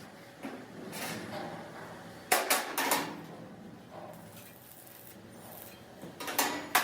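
Metal clanks and knocks from work on rickshaw parts: a few light knocks at first, three loud ringing strikes in quick succession near the middle, and another cluster of strikes near the end.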